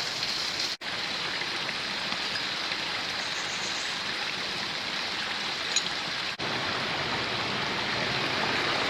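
Mountain stream rushing and cascading over rocks, a steady hiss of water that cuts out for an instant twice.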